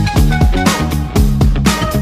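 Instrumental intro music with guitar over a bass line and a steady drum beat.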